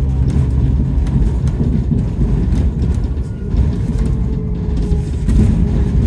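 Double-decker bus engine and road noise heard from inside the moving bus: a continuous low rumble while it drives along.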